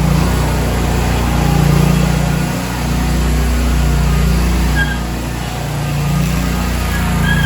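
Gravely ZT60 HD zero-turn mower's two-cylinder Kawasaki engine running steadily, its level swelling and easing. A few short high chirps sound about five seconds in and near the end.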